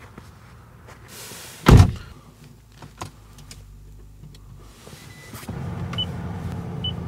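Car door of a second-generation Toyota Prius slammed shut from inside, a single loud thump, followed by a few small clicks. About five seconds in, a steady low hum starts as the car is switched on, with short high beeps near the end.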